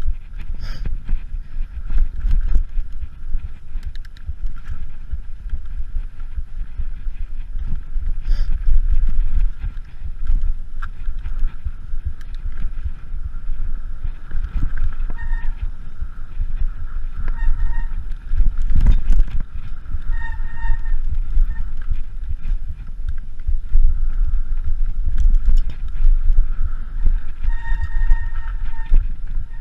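Mountain bike riding down rocky dirt singletrack, heard from a camera on the bike: a steady rumble of tyres and wind buffeting the microphone, with frequent knocks and rattles from the bike over rocks. In the second half there are several brief squeals, each under a second.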